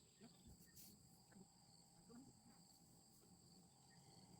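Near silence with a faint, steady high-pitched insect chorus running throughout, and a short hiss about a second in.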